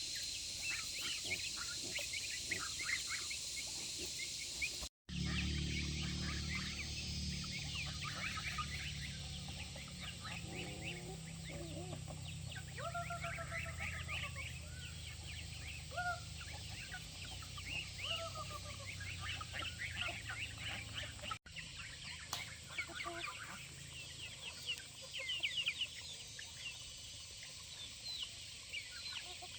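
Farm poultry calling: clucking, mixed with many short, high peeps from young birds. It goes on throughout, with brief breaks where the picture cuts.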